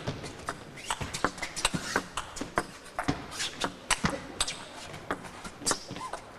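Table tennis rally: the ball clicking sharply and irregularly off the bats and the table, an attacker's hits against a chopping defender's returns, with players' shoes shuffling on the court between strokes.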